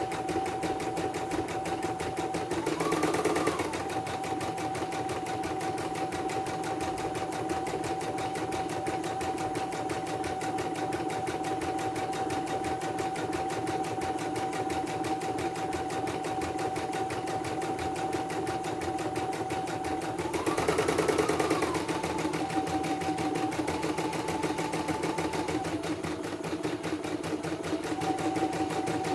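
CNY portable embroidery machine stitching a test design after servicing: a rapid, even needle clatter over a steady motor whine. The whine rises briefly in pitch and loudness twice, about three seconds in and again about twenty seconds in.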